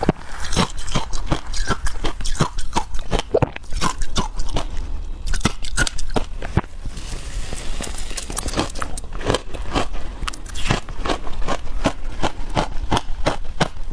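Crushed passion-fruit-flavoured ice being bitten and chewed, a rapid run of sharp, irregular crunches, with a short pause about seven seconds in.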